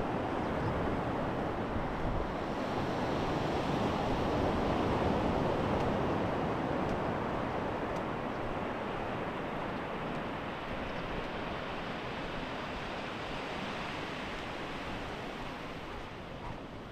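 Sea waves washing onto the shore, a steady rushing noise that swells about four seconds in and then slowly eases, with some wind on the microphone.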